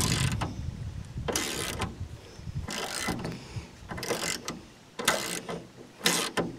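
Hand ratchet wrench clicking in repeated short strokes, about one a second, as a bolt on the truck's rear suspension bracket is turned.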